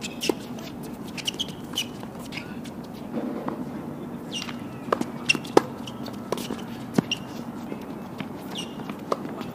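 Tennis balls struck by rackets and bouncing on a hard court during doubles points: a string of sharp pops spaced irregularly, the loudest about five to seven seconds in, with short high squeaks between them.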